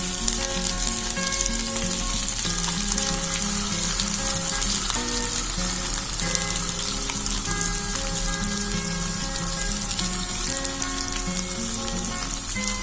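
Oil sizzling steadily in a nonstick pan of stuffed baby brinjals with thick masala gravy just poured in, with background music underneath.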